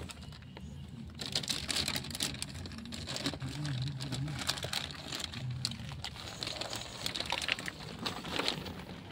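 Plastic sheeting rustling and crinkling, with many small taps and scrapes, as gloved hands sift through soil, rotted cloth and bone fragments lying on it.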